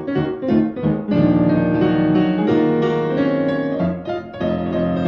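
Piano music, a silent-film style accompaniment: quick separate notes for about a second, then fuller held chords.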